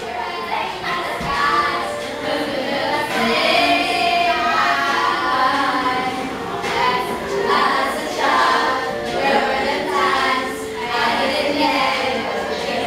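A group of teenage voices singing together.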